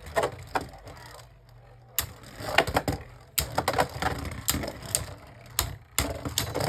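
Two Beyblade Burst tops, Big Bang Genesis and Eclipse Genesis, spinning and colliding in a plastic stadium with rapid sharp clacks. The clacks ease off about a second in, then come thick and fast again from about two seconds in.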